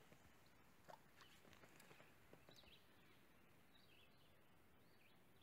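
Near silence: still lakeside air with faint, scattered bird chirps and a few soft clicks.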